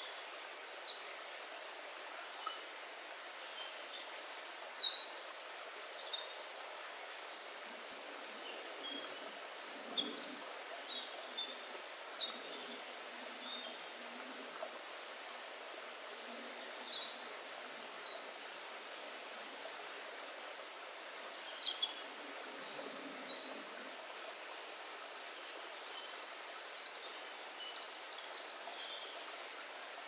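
A small woodland stream running over rocks, a steady rush of water with its low end filtered out, and forest birds chirping and calling in short scattered phrases throughout, a few calls standing out louder.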